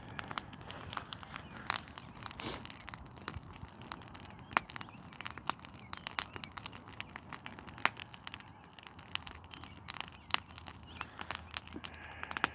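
Campfire crackling, with irregular sharp pops and snaps.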